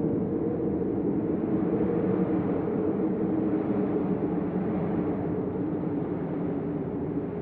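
Storm wind blowing hard and steadily: a deep rushing noise with a low drone under it, swelling slightly about two seconds in.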